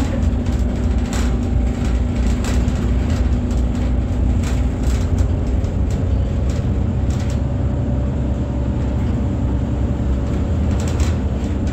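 Inside an Irisbus Citelis 18 articulated bus, its IVECO Cursor 8 diesel engine running steadily, with scattered clicks and rattles from the cabin. The engine note shifts about halfway through.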